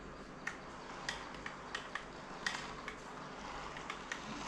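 About ten light, sharp clicks and clinks at irregular intervals, the strongest about halfway through, over a steady low hiss.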